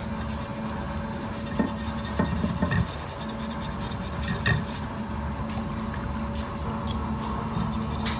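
Cotton swab rubbing and dabbing liquid onto a steel plate: faint scratchy rubbing with a few small ticks, over a steady low hum.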